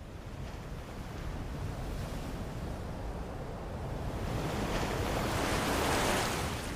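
Sea surf washing onto a pebble shore. A wave swells and breaks about six seconds in, then falls back.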